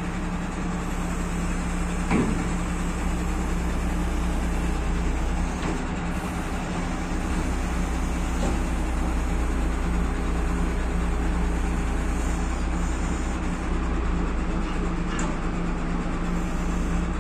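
Truck diesel engine running steadily at an even speed while the truck-mounted crane holds the load; a short knock about two seconds in.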